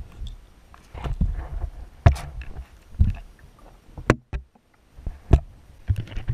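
Muffled, irregular knocks and thuds with water sloshing, picked up by a camera submerged in a live well as bream bump and swim against it. A sharper knock comes about four seconds in, followed by a brief quiet moment.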